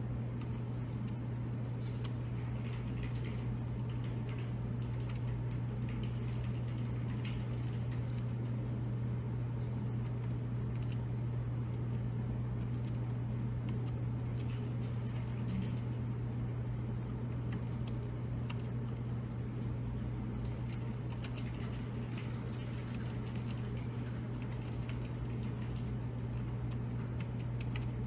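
Scattered light key-press clicks, coming in small clusters, over a steady low hum.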